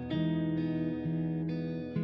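Background music of plucked guitar, with notes changing roughly every half second to second.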